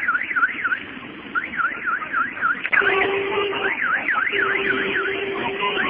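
Electronic alarm siren warbling rapidly up and down, about four sweeps a second, in bursts of roughly a second with short gaps. A steady lower tone joins about three seconds in, over a noisy background.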